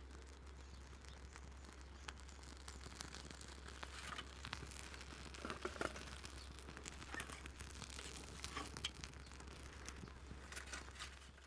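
Faint light rustling with scattered small clicks and taps, busier in the middle, over a steady low hum.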